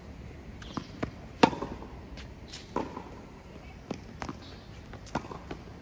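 Tennis rally on a hard court: a series of sharp knocks as a racket strikes the ball and the ball bounces, the loudest hit about a second and a half in.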